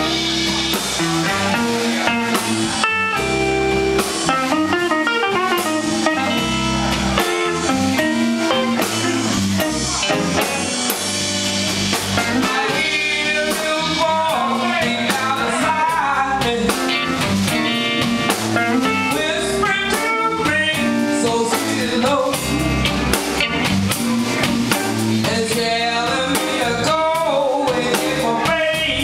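Live blues band playing: electric guitars, bass and drum kit, with a lead line over them that bends up and down in pitch.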